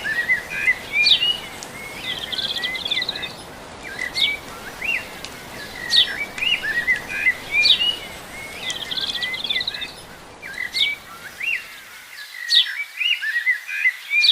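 Small birds chirping over and over, short sharp chirps mixed with quick trills, over a steady background hiss that cuts off about twelve seconds in.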